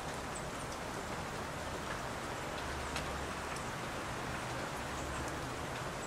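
Steady outdoor hiss with scattered faint ticks and a few brief high chirps.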